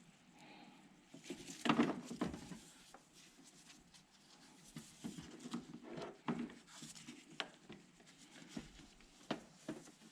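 Scattered light knocks and rustles of a new serpentine belt being handled and fed around the engine's pulleys, with a louder cluster about two seconds in.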